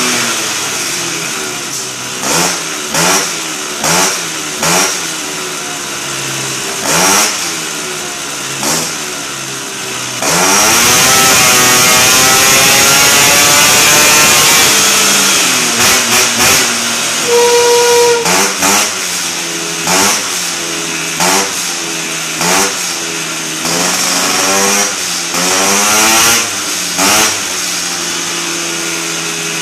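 Air-cooled two-stroke Aprilia SR scooter engine with a Malossi kit and a 24 mm PWK flat-slide carburettor, running on a rolling-road dyno. It idles between repeated short throttle blips, each a quick rise and fall in pitch, and about a third of the way in gives one long rev that climbs and holds high for about four seconds. A short steady beep sounds a little past halfway.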